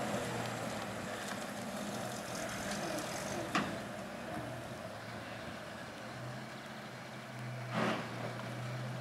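Engines of WWII-era US Army 6x6 cargo trucks running with a steady low hum. There is a sharp knock about three and a half seconds in and a short burst of noise near the end.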